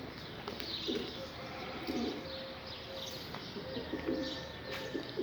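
Domestic pigeons cooing softly in a loft, a few low coos spread through, with faint chirps.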